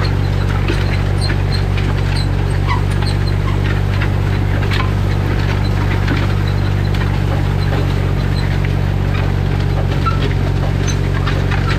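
Tractor diesel engine running at a steady speed, with scattered light clicks and squeaks over it.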